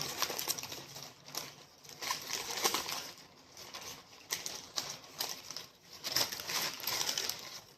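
A wrapped deli sandwich being unwrapped by hand: irregular crinkling and rustling of the wrapper, with scattered sharper crackles.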